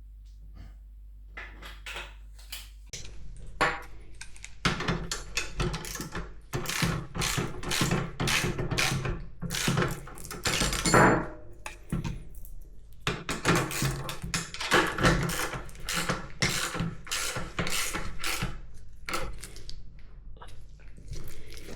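Metal motorcycle parts and hand tools being handled on a workbench: a busy run of knocks, clinks and scrapes that starts about three seconds in and thins out near the end.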